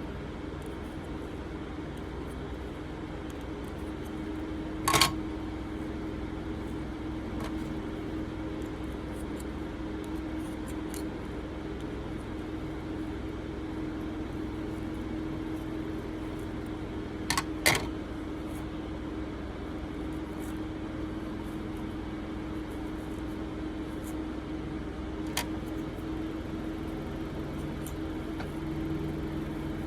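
Steady hum of room fans, broken by four sharp small metal clicks as a tool knocks against the lighter: one about five seconds in, a quick pair around the middle, and a fainter one later.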